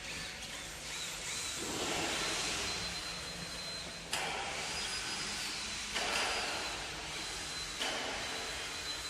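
Silent diesel generator running steadily: an even engine noise with a thin high whine over a low hum, its sound shifting abruptly every couple of seconds.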